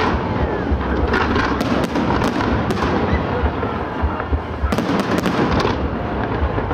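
Fireworks display: aerial shells bursting in a dense, unbroken run of bangs over continuous crackling, with a heavier cluster of reports a little before the end.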